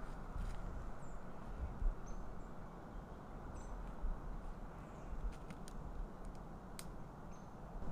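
Strong wind rushing steadily, with gusts rumbling on the microphone, and a few short, faint high chirps and ticks scattered through it.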